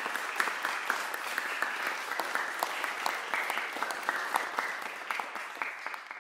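Audience applauding, many hands clapping at once; the clapping fades out near the end.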